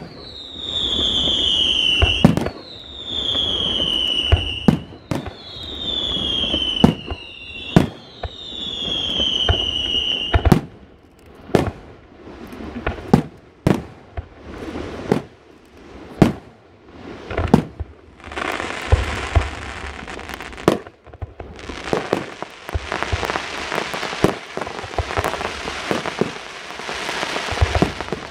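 Aerial fireworks display: four long whistles falling in pitch, each about two seconds, between sharp shell bursts, then a run of single bangs. About two-thirds of the way through, a dense crackling of crackle stars takes over.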